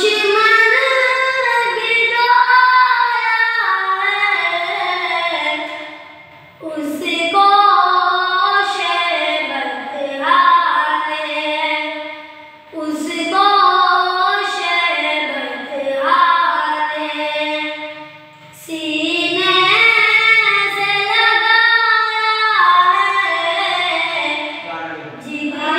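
Solo voice singing a naat, an Urdu devotional poem, in long melismatic phrases with short breaks between them about every six seconds.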